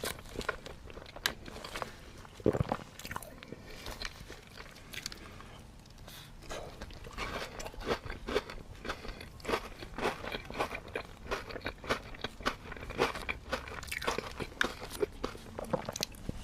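A person biting into and chewing bread close to the microphone: a string of short, crisp crunches that come thicker from about six seconds in.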